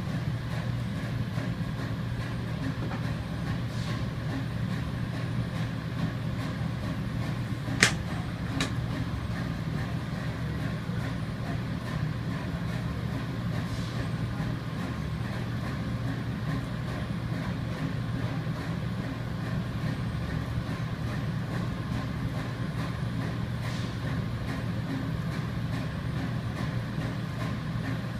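Steady low drone of running industrial machinery, with a sharp click about eight seconds in and a fainter one just after.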